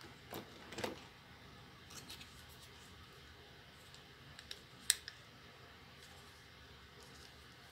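A few faint, short plastic clicks and taps from handling action figures off-camera, with a small cluster in the first second and the sharpest click about five seconds in.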